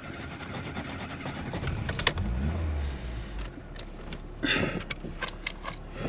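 A car engine starts about two seconds in and then idles with a steady low hum.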